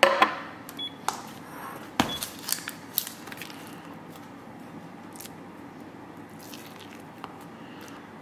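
A ceramic bowl clacks down on a glass-topped digital kitchen scale, and the scale gives a short beep. A metal spoon then clicks and scrapes as cottage cheese is scooped from a plastic tub into the bowl, loudest around two to three seconds in, with a few faint scrapes and ticks after.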